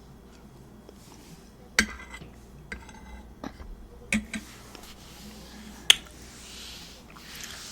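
A few sharp clicks and light taps of dishes and cutlery being handled at a meal, the loudest about six seconds in, with soft rustling near the end.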